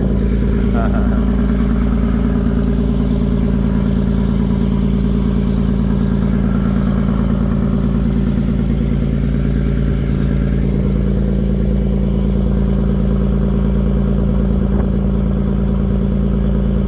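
A steady engine drone: an even hum over a deep rumble, with no change in speed.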